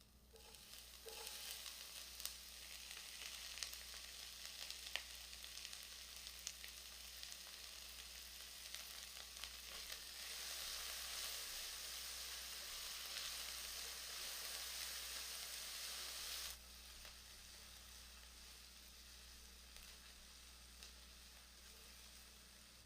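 Chopped vegetables frying in hot oil in a pan: a steady sizzle with a few light clicks. About two-thirds of the way through, the sizzle drops suddenly to a quieter level and carries on.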